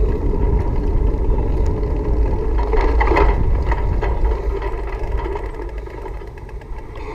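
Wind rumble on the microphone of a moving action camera, a loud steady low-pitched rush, easing off over the last couple of seconds as the camera slows onto grass.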